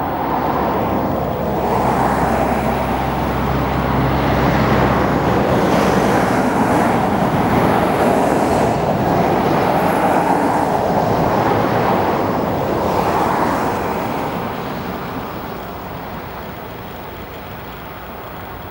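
Embraer EMB 120 Brasilia's twin turboprop engines at takeoff power on the takeoff roll: a steady rushing roar with a low propeller drone in the first few seconds, swelling to its loudest in the middle and fading over the last few seconds.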